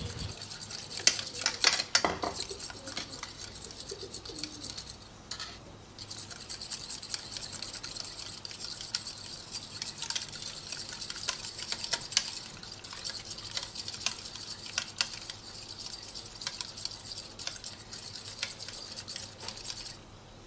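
Metal fork beating eggs in a porcelain bowl: quick, continuous clinking and scraping of the tines against the bowl, with a short pause about five seconds in.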